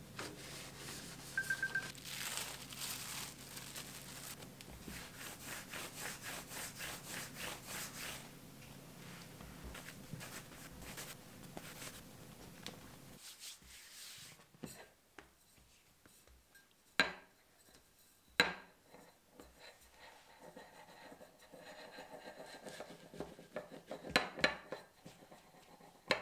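Hands rubbing and rolling bread dough on a countertop, a dense rhythmic rubbing through the first half, then quieter handling with several sharp knocks of a metal rolling pin against the counter in the second half.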